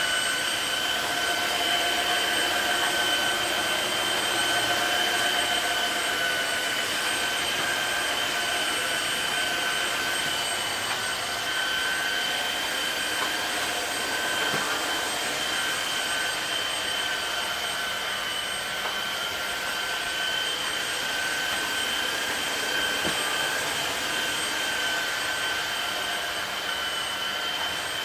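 Tineco Floor One Switch S7 wet/dry vacuum mop running as it cleans tiles, its motor giving a steady high whine over a rushing hiss.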